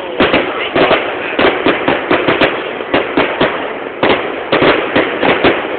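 Fireworks going off: a rapid, irregular run of sharp bangs and cracks, several a second, over a steady hiss.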